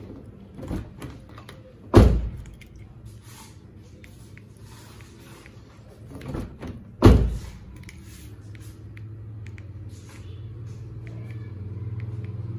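Outside door handle of a Honda Brio car pulled and let go twice, each time a light click followed by a loud clack as it snaps back, while the door stays shut and will not open.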